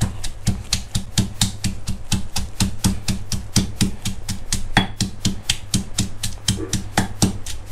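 Stone pestle pounding bird's eye chilies in a granite mortar: rapid, even strikes, about five a second, over a low steady hum.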